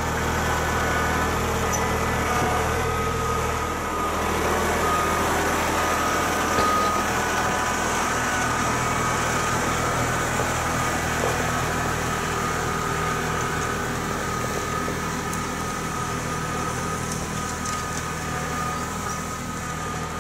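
Kubota compact tractor's diesel engine running steadily as the tractor drives along at a constant pace.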